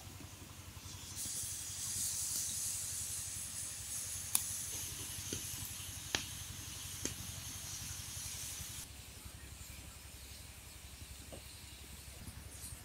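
Green bamboo tubes roasting on an open wood fire: a steady hiss that swells about a second in and fades about two-thirds of the way through, with three sharp pops from the burning bamboo and wood near the middle.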